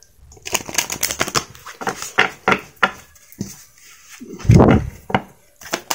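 A deck of oracle cards being shuffled by hand: a run of irregular, quick papery clicks and flicks as the cards slide and snap together. About four and a half seconds in there is a louder, duller thump.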